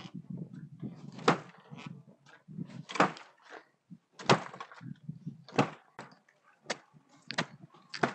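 A blade chopping into a green woody stem: about seven sharp knocks, roughly one every second or so.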